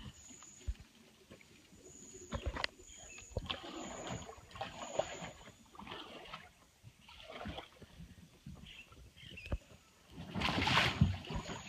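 Water splashing and sloshing as a swamped kayak is handled in shallow river water among branches, with scattered knocks. A louder rush of splashing comes about ten seconds in.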